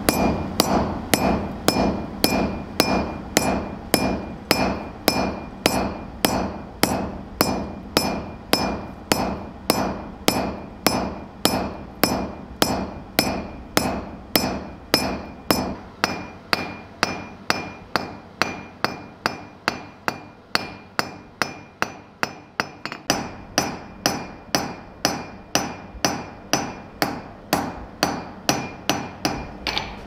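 Blacksmith's hammer striking hot steel held in tongs on an anvil, in a steady rhythm of about two blows a second. Each blow rings briefly, with a high metallic ring running under the strikes.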